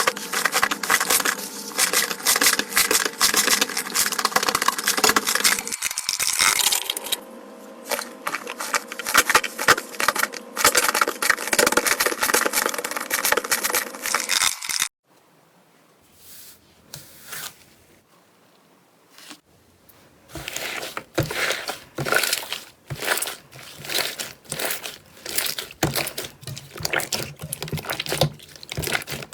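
Slime being squeezed and stretched by hand, with dense crackling and popping. It cuts off sharply about halfway, and after a few quiet seconds sparser, sharper crackles and pops return.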